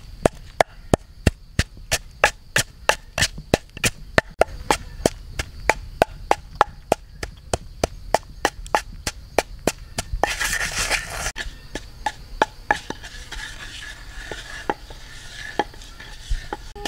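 Knife chopping on a board in a steady run of sharp knocks, about three a second. A little past the middle there is a brief scraping rush, and then the chopping carries on, more sparsely.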